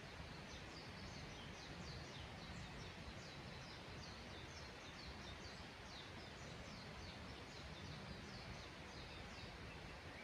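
A small bird calling faintly in a rapid series of short, high, falling notes, about three a second, over a steady faint hiss of background noise.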